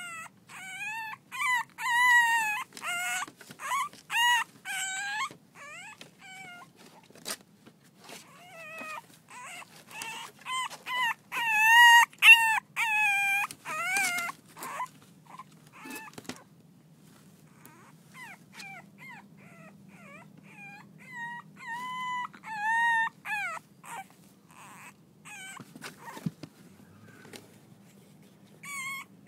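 Six-week-old French bulldog puppies whining and yipping as they play: runs of short, high-pitched calls that rise and fall in pitch, coming in three spells with quieter gaps between.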